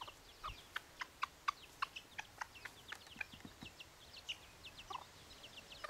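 Deutsches Buschhuhn bantam chicks peeping: many short, falling high peeps several times a second. The hen gives short, lower clucks among them, mostly in the first half.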